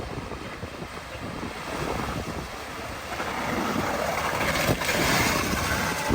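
A vehicle driving through a flooded ford, its wheels pushing through the water with a rushing splash that swells from about three seconds in, with wind on the microphone.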